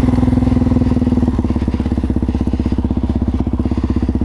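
Suzuki DR-Z400 supermoto's single-cylinder four-stroke engine idling, with an even, fast pulsing beat that grows more distinct after about a second.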